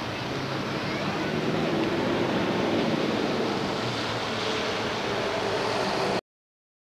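Steady hiss of traffic on a rain-wet street, tyres swishing through water, with some wind on the microphone. The sound cuts off suddenly about six seconds in.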